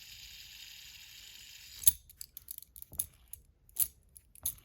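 Metal fidget spinner whirring steadily on its bearing, stopped with a sharp click a little under two seconds in, followed by a few scattered clicks and taps as it is handled.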